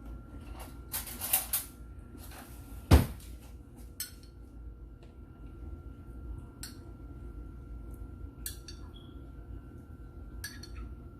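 Kitchen utensils and dishes clinking and scraping: a short scrape about a second in, one sharp knock about three seconds in, then scattered light clicks.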